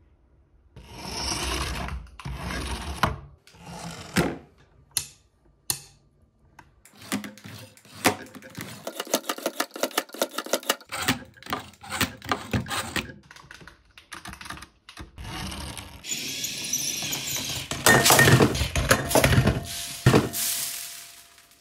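A toy radio-control truck's small electric motors whir in short bursts. Then comes a long run of rapid clicks as a metal fork on its arm beats raw eggs and taps against the ceramic dish. Louder motor whirring and clatter follow near the end.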